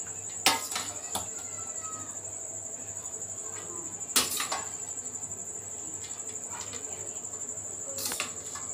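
A metal spoon scooping drained boiled rice into an aluminium pot, knocking on the metal three times: about half a second in, about four seconds in and near the end. A steady high-pitched trill runs underneath.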